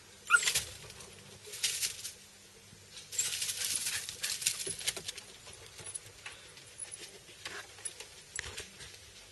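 Dry leaves and debris rustling and crackling in short bursts, with light clicks and knocks, as a small dog noses through leaf litter and climbs onto a pile of wooden boards. The longest burst comes a few seconds in, followed by fainter scattered clicks.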